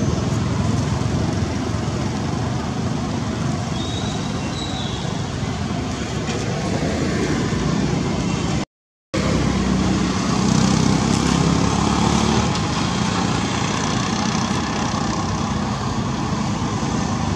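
Steady outdoor background noise like road traffic going by, which cuts out for a moment about halfway through.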